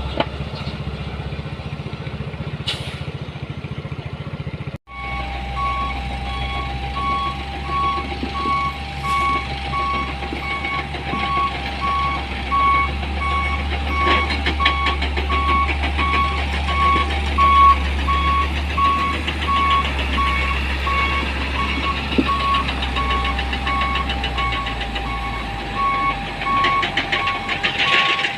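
Heavy truck engine running with a low rumble; after a sudden cut about five seconds in, a reversing alarm beeps evenly and repeatedly over the engine.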